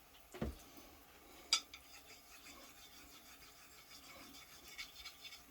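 Faint handling of a straight razor and honing stone while loose grit and abrasive slurry are cleared off: light rubbing, with a soft knock about half a second in and a sharp click a second later, then a few small ticks near the end.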